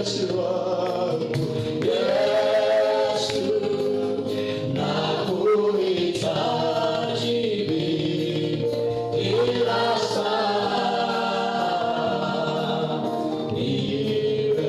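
A group of voices singing a slow gospel song in long held notes, phrase after phrase, over steady low accompaniment.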